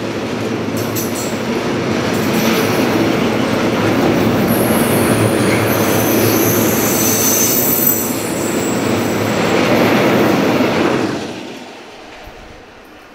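Loaded freight tank wagons rolling past, their steel wheels rumbling on the rails, with a high wheel squeal in the middle. The noise drops away about 11 s in as the end of the train passes.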